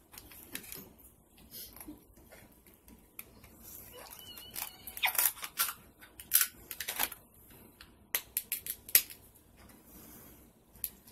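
King crab leg shells cracking and snapping as they are broken open by hand and cut with scissors: scattered sharp cracks and clicks, coming in quick bunches around the middle and again a little later.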